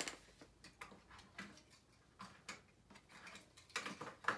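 Scattered light clicks and taps as two toy cars are handled and set at the top of a cardboard ramp. The loudest taps come near the end.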